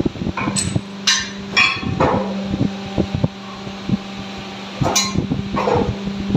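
Hydraulic alligator shear running, its hydraulic pump unit humming steadily while the heavy jaw closes, with several sharp metallic clanks that ring briefly, in two clusters about a second in and again near five seconds.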